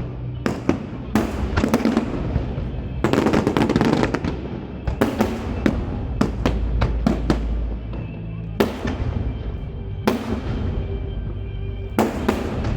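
Aerial fireworks shells bursting in repeated clusters of sharp bangs, with dense crackling in the thickest volley.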